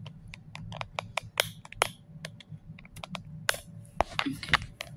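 Irregular light clicks and taps, a few to the second, over a low steady hum.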